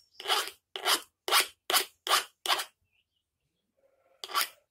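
Hand file rasping across the cutting teeth of a chainsaw chain, sharpening them: six quick strokes at about two and a half a second, a pause, then one more stroke near the end.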